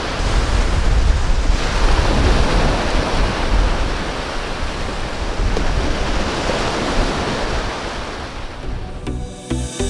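Small waves breaking and washing up a sandy beach: a steady surf hiss that swells and eases, with wind rumbling on the microphone. Music comes in just before the end.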